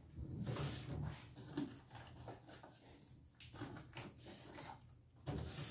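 Faint, irregular rustling and a few soft knocks of someone moving about and handling things.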